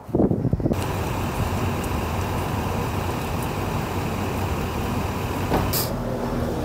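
Steady street traffic noise with a low engine rumble from nearby vehicles, starting abruptly just under a second in, and a short hiss near the end.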